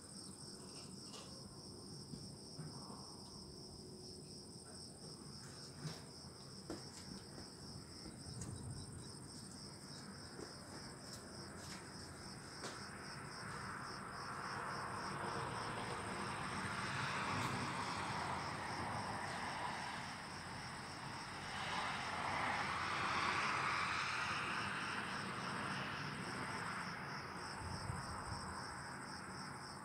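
Crickets chirping steadily in a continuous high, pulsing trill. A broad hiss swells up about halfway through and fades again near the end.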